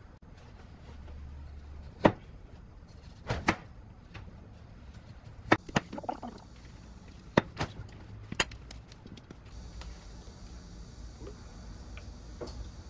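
Kitchen knife knocking on a plastic cutting board as onion and tofu are cut: a scattered series of sharp single knocks, about eight, at irregular intervals.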